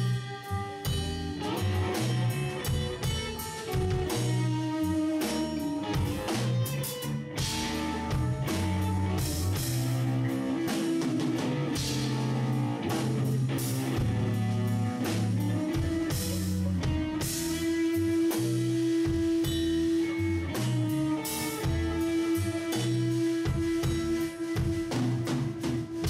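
Instrumental progressive rock played by a trio of electric bass, drum kit and guitar, with a long held note in the second half.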